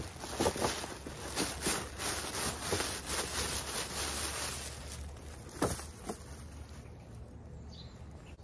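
Rustling and crinkling of a shopping bag and a corduroy shirt as the shirt is pulled out and unfolded: a busy run of crackly rustles over the first five seconds, one sharper rustle a little later, then quieter handling. Insects hum in the background.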